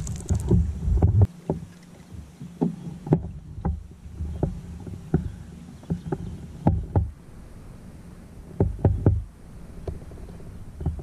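Knocks and bumps on a fishing kayak, a dozen or so short, irregularly spaced strikes over a low water-and-wind background, after a low rumble in the first second.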